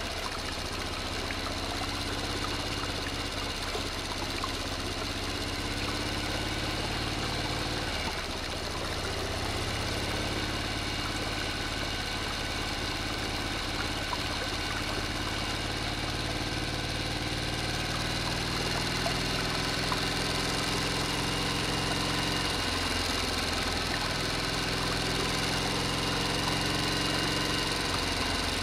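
Small electric motor of a miniature water pump running with a steady hum, its pitch wavering slightly, with a brief dip about eight seconds in.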